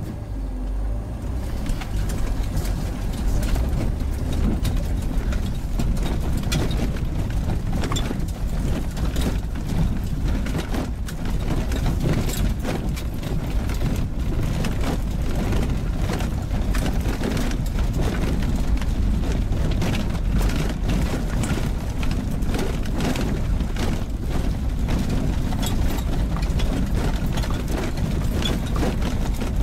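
A car driving over a rough gravel and dirt forest road, heard inside the cabin. Engine and tyres make a steady low rumble, with frequent sharp ticks and knocks from the loose surface and bumps.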